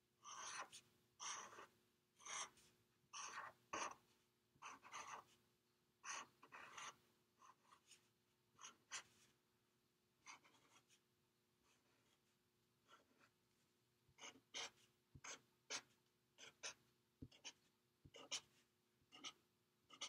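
Faint scratching of a felt-tip marker on paper as short strokes are drawn, coming in quick clusters. It pauses for a few seconds about halfway through.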